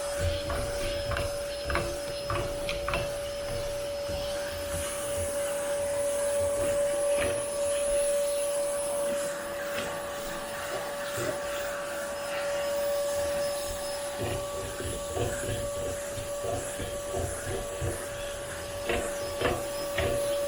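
Bagged vacuum cleaner running with a steady whine as its nozzle is worked over upholstered furniture, scraping and knocking irregularly against the fabric while it pulls up hair.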